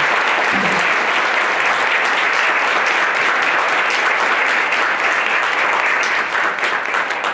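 Audience applauding: steady, dense clapping that fades away near the end.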